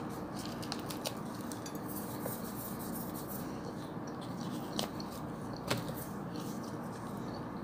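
Quiet chewing and tearing of khubz flatbread, with a few faint clicks.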